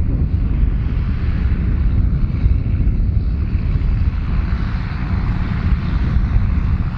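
John Deere 7810 tractor's six-cylinder diesel running steadily under load as it pulls a 6 m spring-tine cultivator through the field.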